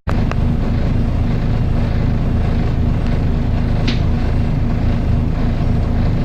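Volvo B10BLE bus's diesel engine and very loud cooling fan running with a steady, unbroken drone. Two brief high ticks come through, one just after the start and one about four seconds in.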